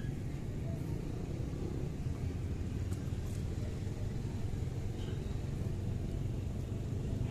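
A steady low rumble that holds at the same level throughout, with no distinct events.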